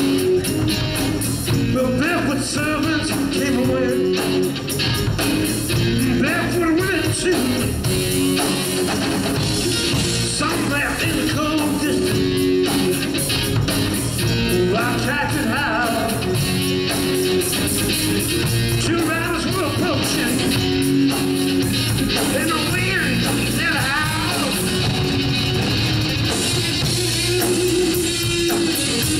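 Live rock band playing: electric guitar, bass guitar and drums, with a male lead singer singing over them.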